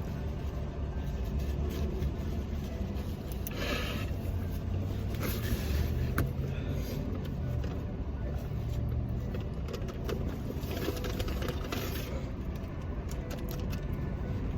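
Car engine idling, a steady low hum, with a few brief rustling noises over it.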